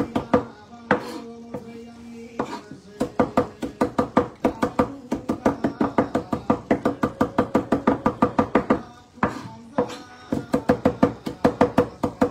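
Large kitchen knife rapidly chopping fresh parsley on a wooden chopping board, a quick run of knocks that pauses briefly twice. Music plays underneath.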